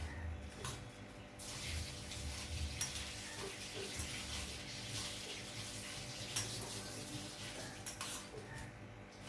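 Water running from a tap as hands are washed, starting about a second in and stopping near the end, with a few light knocks.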